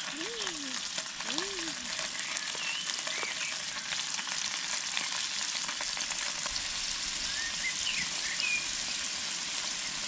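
Cubes of paneer frying in hot oil in a small pan on a portable gas stove: a steady sizzle dotted with fine crackles.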